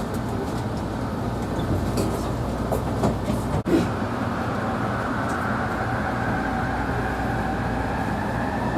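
Steady rumble and hum inside a Bombardier ART light-rail car, a driverless steel-wheeled linear-motor train, with a few faint clicks and a momentary break about three and a half seconds in.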